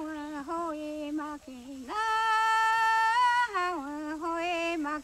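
An elderly woman singing alone, unaccompanied, in a chant of held notes that slide up and down between pitches. Her longest and loudest note comes about halfway through.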